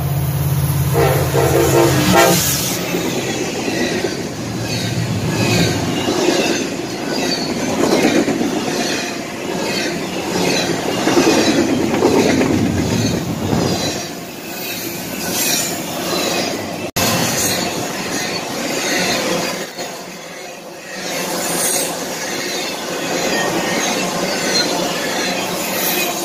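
Diesel freight locomotives blow their horn until about two seconds in, then pass close by with engines running. A long double-stack intermodal train follows, its wheels clicking over the rails in an even rhythm.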